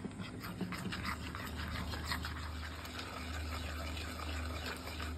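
Steel spoon stirring and scraping a wet spice-and-oil paste of turmeric, pepper, chilli powder and garam masala in a small bowl, in irregular small clicks and scrapes. A low steady hum runs underneath from about a second and a half in.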